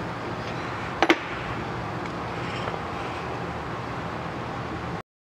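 Steady workshop background hiss with two quick, sharp knocks about a second in, from hard parts being handled on the workbench during a brake caliper reassembly. The sound cuts off abruptly near the end.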